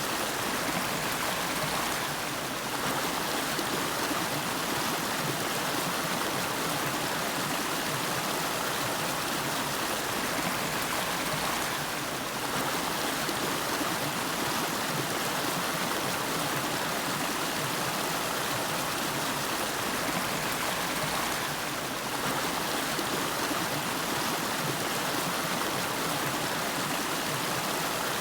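River water flowing and splashing over rocks: a steady, even rush.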